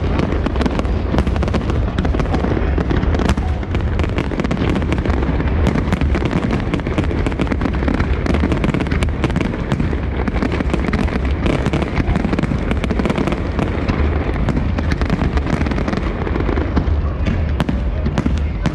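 New Year fireworks display: a dense, unbroken barrage of bangs, pops and crackling over a heavy low rumble of booms.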